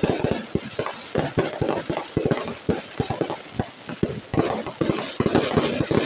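Fireworks going off in quick succession: many irregular pops and bangs, several a second. A crackling sparkle thickens about four seconds in.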